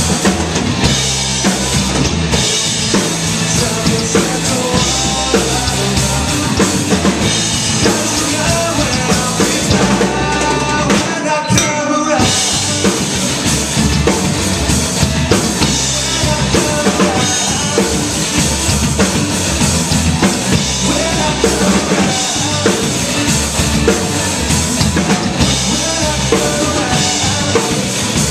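Live rock band playing loud: a drum kit with kick and snare under two electric guitars. About eleven seconds in the drums and low end drop out for about a second, leaving held guitar notes, before the full band comes back in.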